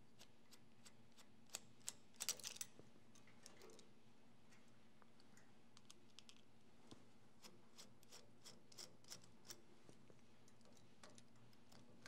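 Light metallic clicks and taps of a small screwdriver working a screw on a typewriter's sheet-metal motor-mount bracket. There is a quick cluster of clicks about two seconds in, then scattered single taps.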